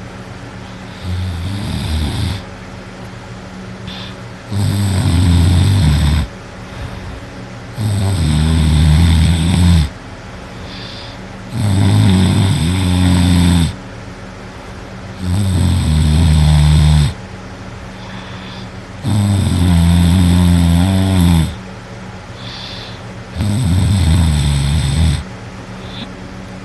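A person snoring heavily in a deep, alcohol-induced sleep: seven loud snores, each under two seconds long, coming about every three and a half to four seconds, over a steady low hum.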